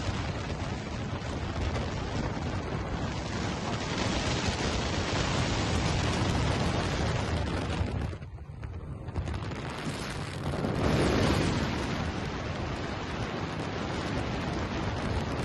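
Wind rushing over the microphone: a steady, rough noise with a short lull past the middle and a gust soon after.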